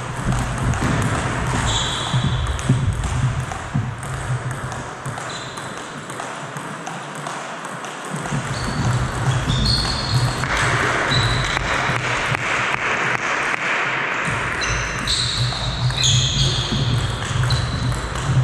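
Table tennis ball clicking off the bats and the table during a rally, with short high squeaks of sports shoes on the gym floor and a steady low hum under it.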